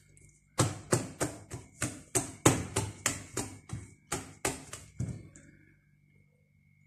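Wire whisk beating thick chocolate cake batter in a glass bowl, the wires clicking against the bowl about four times a second. The strokes stop about five seconds in.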